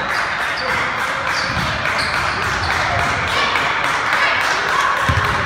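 Echoing din of a youth basketball game in a gymnasium: many voices from the crowd and players blending into a steady, loud hubbub, with short high squeaks of sneakers on the court scattered through it.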